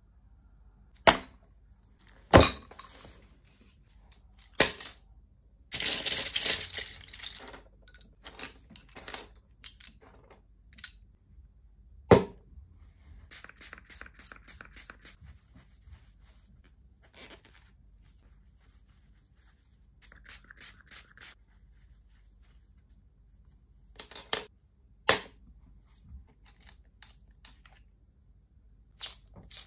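Desk handling sounds: sharp taps and knocks as objects such as pencils are set down on a hard desktop, a burst of paper rustling, and fainter rubbing of a paper tissue.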